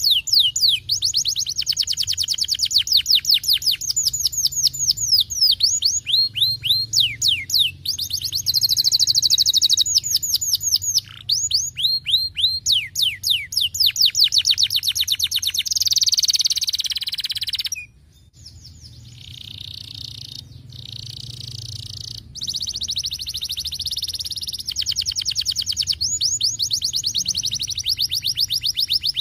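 Canary singing: long rapid runs of the same falling whistled note, repeated many times a second. Near the middle comes a denser buzzy roll, then a brief break, then softer warbling before the fast falling runs return.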